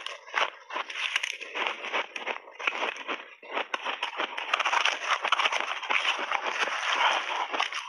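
Crushed ice crunching as it is chewed in big mouthfuls, a dense, continuous crackle of many small cracks.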